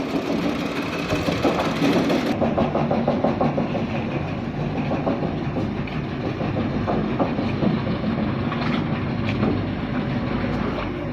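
Arch-roof steel-sheet roll-forming machine running, its motor and rollers making a steady mechanical noise with a rapid clatter of ticks and a few sharp clicks.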